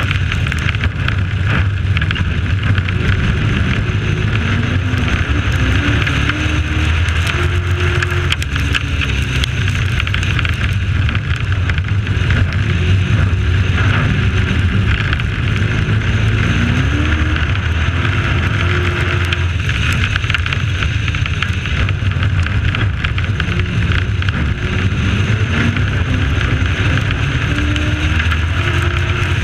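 Onboard sound of a racing pickup truck's engine running hard through the laps, its pitch rising and falling between straights and corners, under a steady rush of wind and tyre noise.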